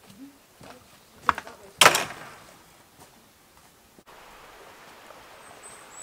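Boots scuffing on a stony path and a wooden gate knocking, then banging shut about two seconds in. After a cut, steady woodland background with a brief high bird chirp near the end.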